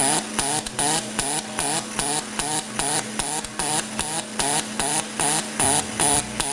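Pulsed MIG welding arc from an ESAB SuperPulse process, buzzing and crackling in a steady rhythmic pulse about four times a second as the two alternating waveforms switch.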